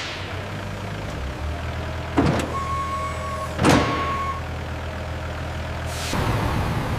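Factory machinery running with a steady low hum. Two sharp noisy bursts come about two and three and a half seconds in, with a steady high tone held between them, and a louder hiss sets in near the end.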